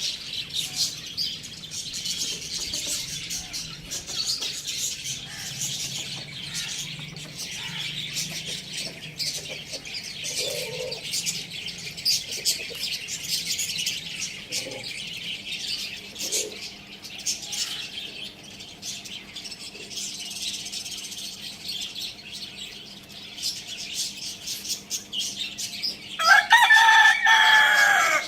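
Many small birds chirping continuously. Near the end a rooster crows once, loud and lasting about two seconds.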